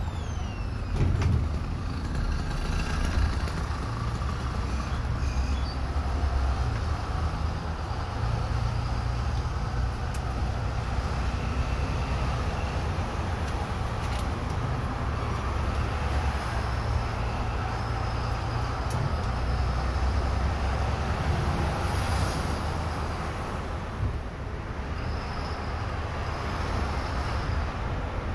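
Steady low engine and road rumble inside a moving bus, with a few light rattles and clicks now and then.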